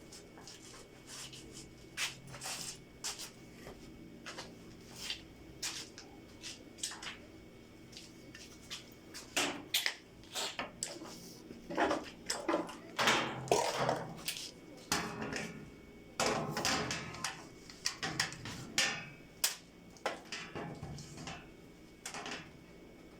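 Hard objects being handled: scattered clicks and knocks, growing into a busier run of knocking, scraping and rattling about halfway through.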